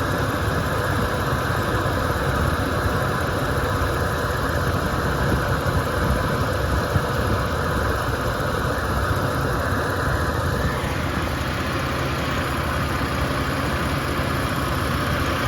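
2007 Dodge Nitro's 3.7-litre V6 idling steadily with the air conditioning running full blast.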